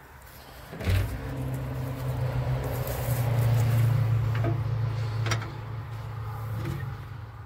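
A motor's steady low hum that starts suddenly about a second in, grows louder through the middle and fades near the end, with a few light knocks over it.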